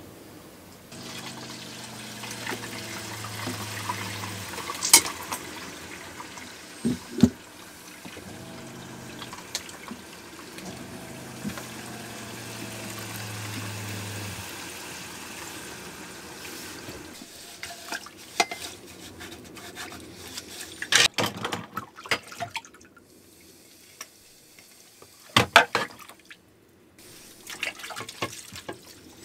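A kitchen tap running into a stainless-steel sink for the first half, with a low hum coming and going underneath. Then dishes are washed by hand: plates clink and knock against the sink and each other.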